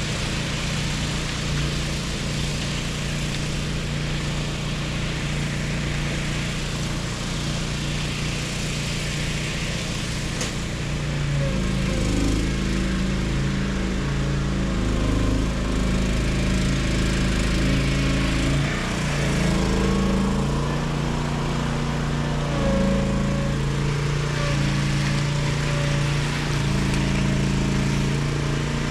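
Small gasoline engine running steadily, with its pitch shifting from about eleven seconds in.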